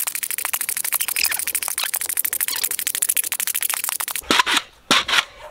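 Pogo stick bouncing on a concrete court, a fast even run of sharp clicks at about ten a second. From about four seconds in this changes to a few slower, louder knocks.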